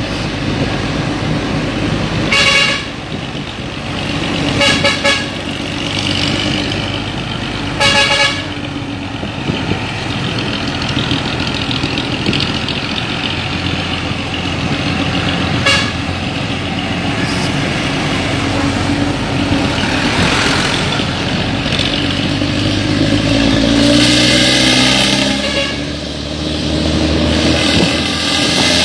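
Luragung intercity bus running with its raspy, tinny 'ngorok cempreng' exhaust, the note characteristic of Luragung-group buses. The engine note rises about three-quarters of the way through. A horn toots about five times in the first half, twice in quick succession around five seconds in.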